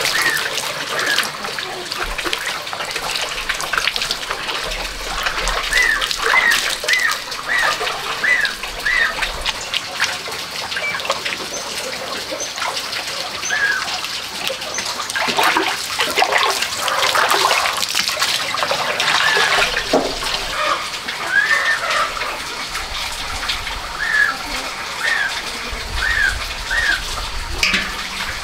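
Hair being washed by hand in a metal basin of water: splashing, sloshing and dripping. A bird calls in the background in quick runs of short repeated chirps, twice.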